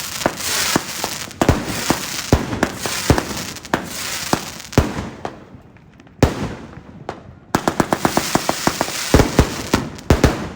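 A Beast 100-shot firework cake fires shot after shot, sharp bangs over a steady hiss. The shots thin out midway, then come in a fast run of several a second near the end.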